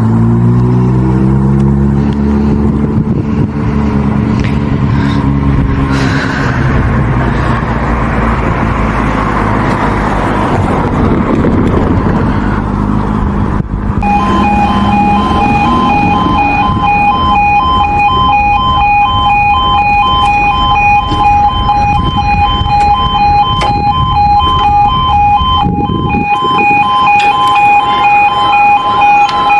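Road vehicles passing, an engine dropping in pitch at the start. About halfway through, the level crossing's warning alarm starts: a loud, rapidly pulsing two-tone beeping that keeps going.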